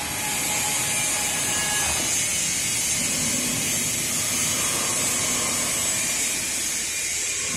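CNC mortising machine with multiple spindles cutting mortises in wood, running with a steady high hiss.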